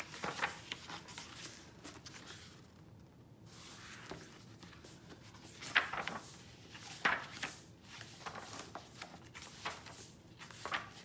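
Paper pages of a large hardcover book being leafed through: a string of irregular soft rustles and swishes, with louder page turns about six and seven seconds in and again near the end.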